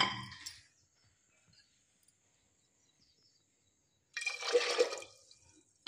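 Water poured into a pressure cooker of soaked kidney beans, splashing twice: one pour dies away about half a second in, and after a silence another splash of about a second comes near the end.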